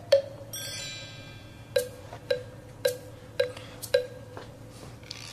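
Background music score: a ticking cue of short, ringing plucked notes repeating almost twice a second, with a bright shimmering chime flourish about half a second in.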